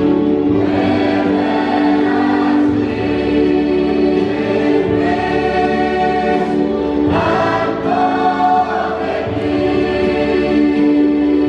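A large choir of men's and women's voices singing a hymn together, on long held notes.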